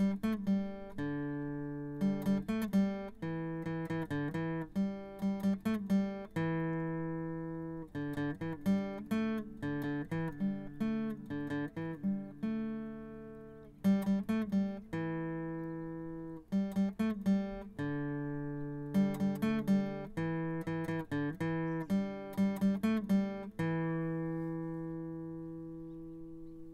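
Acoustic guitar music: a run of plucked notes and chords, ending with a long chord that rings and fades.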